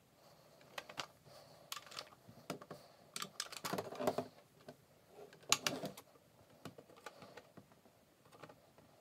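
Foam balls being dropped one by one into a clear plastic 40-round Nerf Rival magazine: light, irregular plastic clicks and short rattles, a few coming in quick bunches.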